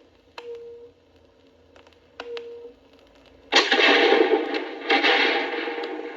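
Radio static: crackling clicks and two short whistling tones, then about three and a half seconds in a loud rush of hiss that breaks off for a moment near the end.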